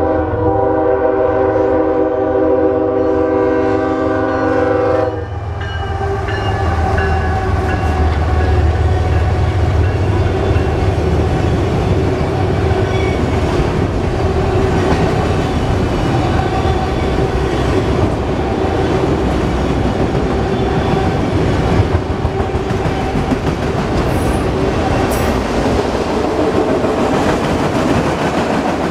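Diesel freight locomotive's multi-chime air horn sounding one long blast over the low rumble of its engines, sounded for the grade crossing, and cutting off about five seconds in. A long train of autorack cars then rolls by with a steady rumble and wheel clatter.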